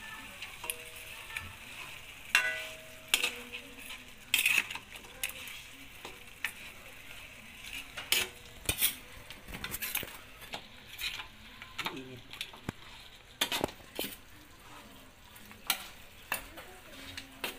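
A metal spatula scraping and knocking against a metal wok as pork chops and onion rings are stirred in a soy and oyster sauce. Irregular sharp clacks sound over a steady light sizzle from the pan.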